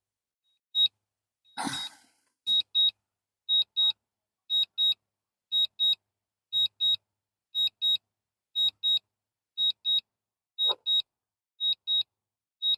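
Drone remote controller beeping a pair of short high beeps about once a second, the alert that the drone is in return-to-home. A brief soft rush of noise about two seconds in.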